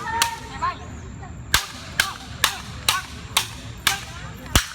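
A series of sharp cracks, about two a second, starting about a second and a half in, after a voice talking briefly at the start.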